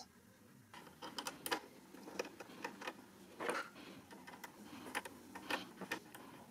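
Small metal parts clicking and ticking at irregular intervals as a low shank snap-on adapter is fitted onto a sewing machine's presser bar and its holder screw is turned with a small screwdriver.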